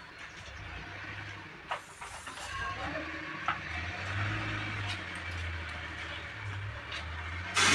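Air line hissing as compressed air is fed into a repaired 10.00-20 truck inner tube, over a low steady hum. The hiss grows, then turns abruptly much louder near the end.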